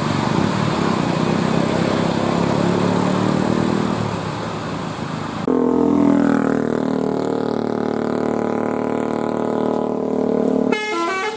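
Tour bus engines running as buses pass: first a broad roar of engine and road noise, then, after an abrupt change about five and a half seconds in, a steady droning engine note. Near the end a multi-tone telolet melody horn starts sounding stepped notes.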